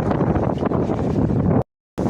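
Strong wind buffeting the microphone, a dense low rumbling noise. It cuts off abruptly to dead silence for about a third of a second near the end, then resumes.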